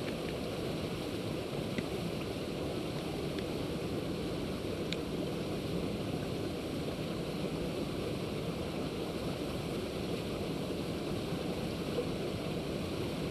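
Steady wind noise buffeting the microphone, a continuous rushing rumble, with a faint tick about five seconds in.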